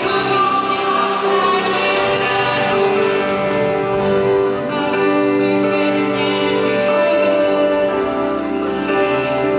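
A woman and a man singing a slow Christian song through handheld microphones, with a choir and accompaniment behind them. Long held notes at a steady loudness.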